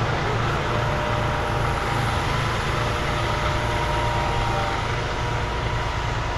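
Heavy diesel engine of a concrete pump truck running steadily, with a faint steady whine above the rumble.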